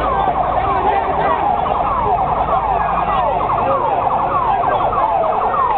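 Siren sounding in rapid, repeated falling sweeps, several a second, over a low background rumble.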